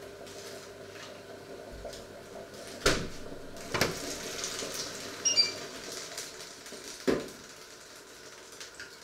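Kitchen things being handled and set down on a wooden worktop: three sharp knocks with a short ringing clink between the second and third, over a faint steady hum that dies away in the first few seconds.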